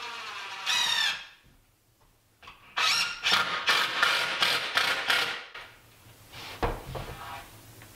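Cordless drill driving screws into a wooden cabinet face frame: a short whine about a second in, then a longer stretch of choppy, stop-and-start whining as the screw is run in, followed by a low knock of wood.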